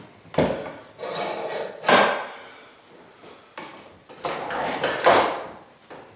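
A clamp being fitted and tightened on wooden workbench rails: a run of knocks and scraping slides of metal against wood, the loudest about two and five seconds in.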